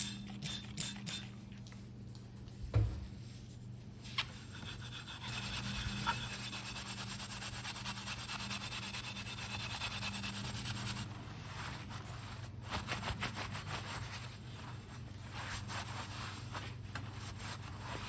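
A foam-covered metal water-heater nameplate being scrubbed by hand with quick back-and-forth strokes, steady for several seconds and then in shorter broken strokes. A few light clicks and a knock come about three seconds in.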